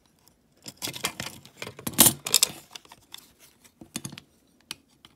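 Small die-cast metal toy parts clicking and rattling as they are handled and fitted together, with the loudest clatter about two seconds in.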